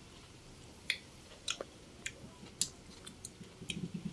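A person eating chicken rice porridge, chewing with a few sharp clicks and smacks scattered through. A low voice-like sound begins near the end.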